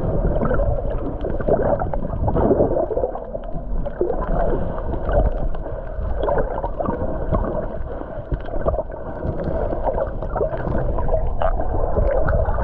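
Muffled water sloshing and gurgling with many small pops and clicks, heard through a camera microphone held underwater.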